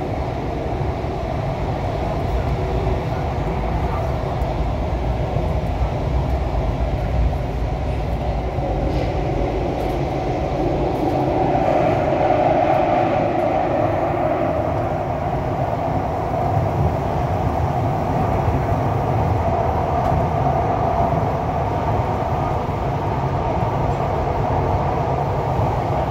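A Thomson-East Coast Line metro train (set CT251) running at speed through a tunnel, heard from inside the leading car. There is a steady low rumble of wheels on rail, which grows louder and harsher about halfway through as the track curves.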